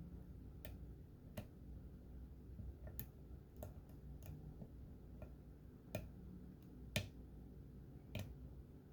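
Lock pick and tension wrench working the pins of an American pin-tumbler padlock, giving about a dozen small, irregular metallic clicks as the pins are lifted and set, the sharpest about seven seconds in.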